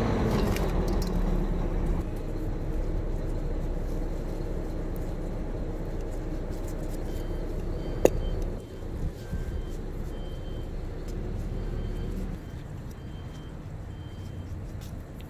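Motor vehicle engine running steadily, its low rumble dropping away about twelve seconds in. A single sharp click about eight seconds in.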